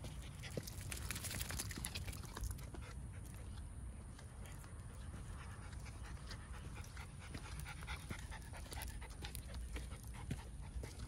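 Shiba Inu panting steadily while walking on a leash, with faint ticks of steps on the concrete path.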